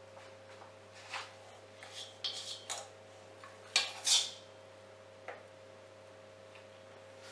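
A metal tablespoon clinking and scraping against a stainless steel mixing bowl while scooping cookie dough: a handful of short clinks, the loudest and most ringing pair about four seconds in.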